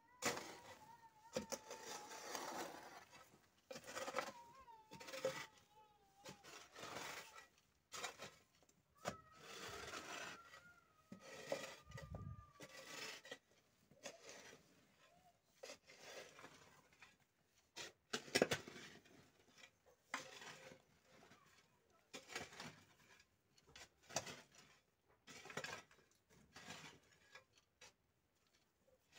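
Iron hoe blade scraping and chopping through loose soil and small stones in irregular strokes, roughly one every second or two, as soil is pulled into a foundation trench to backfill it.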